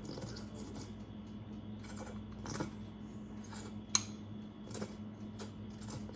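Scattered light clicks and clinks of kitchen utensils and containers being handled, with one sharp click about four seconds in, over a steady low hum.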